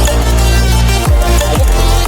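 Electronic dance music with heavy sustained bass and a pounding kick drum, a dubstep-style track.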